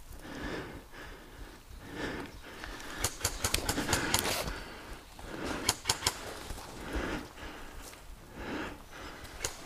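Footsteps through dry grass at a steady walking pace, about one step every 0.7 seconds. A quick cluster of sharp clicks and snaps comes about three seconds in, and a shorter one near six seconds.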